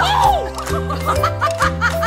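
Background music with a steady, repeating bass line, with a woman laughing over it.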